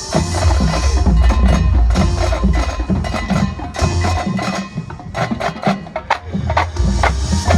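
Marching band playing, heavy with percussion: many sharp drum and wood-block-like hits and mallet percussion over loud, low held notes, starting suddenly.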